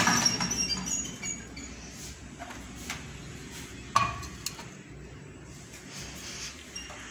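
Microwave oven door clunking open at the start, then a steel bowl clinking down onto the glass turntable plate about four seconds in, with a few lighter knocks in between.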